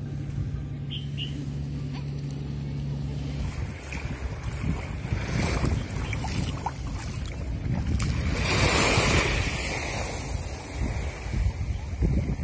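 Small waves washing up the sand and around bare feet at the water's edge, with wind on the microphone; the wash swells loudest about two-thirds of the way through. A steady low hum runs for the first few seconds and then stops.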